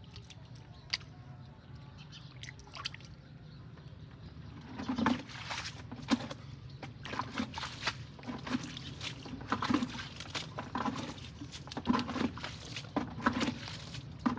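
Hands sloshing and splashing in shallow muddy water while groping for fish. Fairly quiet at first, then irregular short splashes from about five seconds in.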